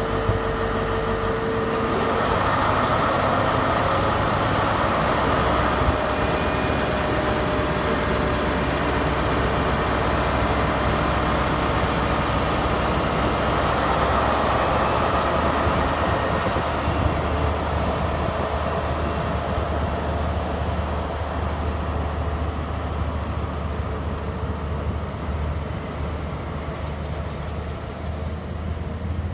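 ScotRail HST Class 43 diesel power car running with a steady tone, then its engine noise swells about two seconds in as the train pulls away. The sound eases off later as the coaches roll past.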